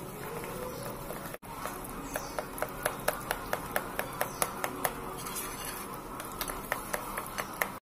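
A metal spoon stirring flour batter in a glass bowl, clicking against the glass about four times a second, mixing the batter until it is evenly combined. The sound cuts off abruptly near the end.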